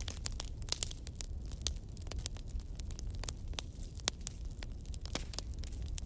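Wood fire crackling in a fireplace: many irregular sharp pops and snaps over a steady low rumble.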